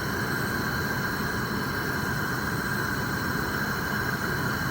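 Portable camp stove burner hissing steadily under a pot of hot-pot broth at the boil.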